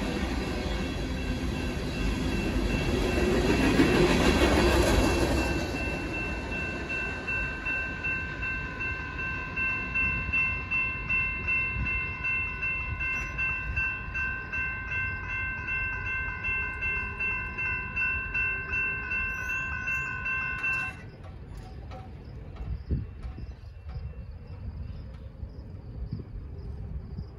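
The last cars of a Union Pacific local freight train rumble over the crossing, loudest about four seconds in, then fade out. The grade-crossing warning bell keeps ringing in an even, pulsing beat until it cuts off suddenly about 21 seconds in, as the gates start to lift. A single knock follows a couple of seconds later.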